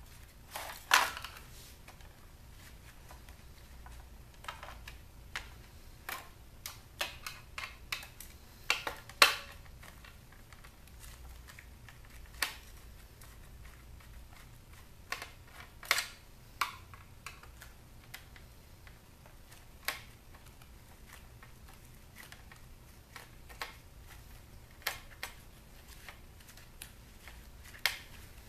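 Scattered sharp clicks and knocks of a portable DVD player's plastic case being handled and pried apart as its back panel is worked off, over a faint steady low hum.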